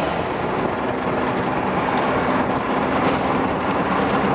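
Car engine running steadily at one pitch, heard on board over a steady rush of wind and tyre noise as the car drives down a race-track straight.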